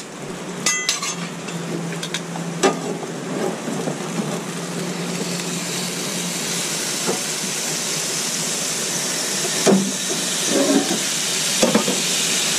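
A whole spatchcock chicken sizzling on the hot grill grates of a charcoal smoker as it is flipped with tongs and a spatula. There are a few metal clinks of the utensils on the grate in the first few seconds, a low steady hum for the first half, and the sizzling hiss grows louder from about five seconds in, with a couple of knocks near the end.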